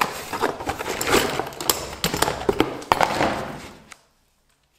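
Unboxing handling noise from a cardboard box holding an 800 W trim router and its metal accessories: cardboard rustling with irregular taps and knocks as the parts are lifted out. The noise fades and stops abruptly about four seconds in.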